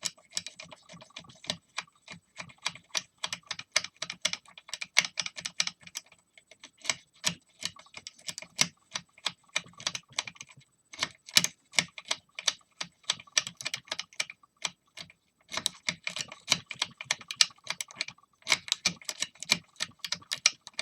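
Lock pick and tension wrench working the pins of a pin-tumbler house lock cylinder: a fast run of small metallic clicks and scratches that stops briefly a few times. The lock does not open.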